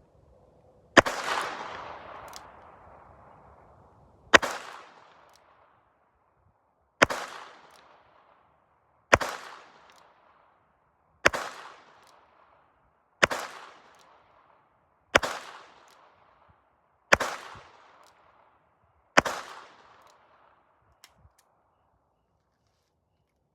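J.C. Higgins Model 88 revolver firing nine .22 Long Rifle shots, one about every two seconds, each with a short ringing tail; the first rings out longest. Two faint clicks follow near the end.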